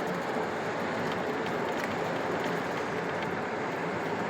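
Steady road and tyre noise of a car travelling on a freeway.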